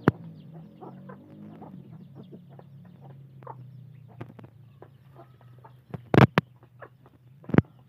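Kampung chickens and chicks clucking and peeping softly while feeding, over a low steady hum. Two loud sharp knocks come about six seconds in and again near the end.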